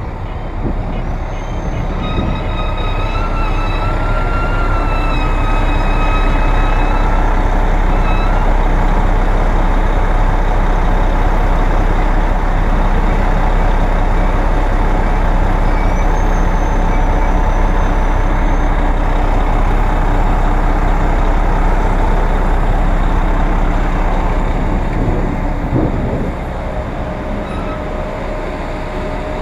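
City traffic heard from a moving bicycle, with a bus running close alongside and giving a steady low rumble. About two seconds in, a high squeal at several pitches holds for about six seconds, and another brief high tone comes around the middle. The traffic noise eases near the end.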